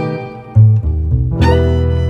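Instrumental background music: after a short lull, a few low plucked bass notes, then fuller string notes come in about one and a half seconds in.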